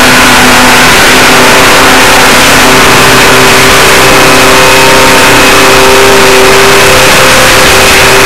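Heavy earth-moving machinery engine running steadily, a held drone of several steady tones, under a loud, even hiss from the old film soundtrack.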